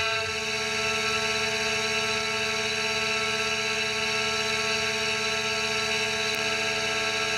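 Tormach PCNC 1100 CNC mill facing an aluminium plate under flood coolant: a steady whine from the spindle and end mill over the hiss of coolant spray, heard close up. A lower tone joins about six seconds in.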